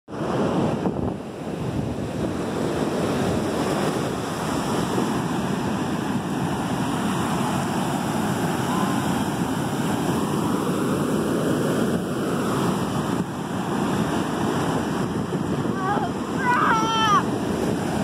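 Ocean surf breaking and washing up the beach, with wind buffeting the microphone. A person's brief high-pitched voice cuts in near the end.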